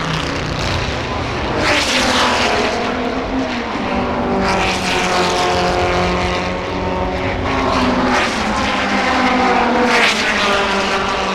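1960s Le Mans racing cars passing at speed one after another, their engines swelling loudest about 2, 5 and 10 seconds in, each note dropping in pitch as the car goes by.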